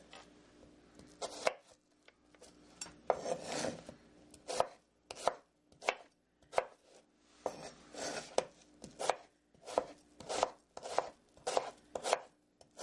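Serrated kitchen knife slicing a Bosc pear into thin strips on a wooden cutting board, each cut ending in a short knock of the blade on the board, about two cuts a second.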